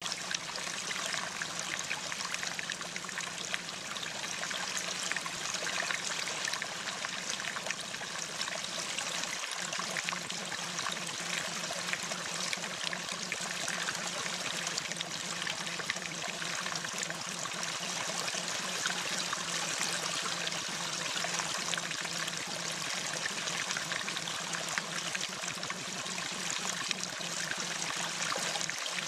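Recorded rain sound: a steady, even hiss of falling rain with no let-up.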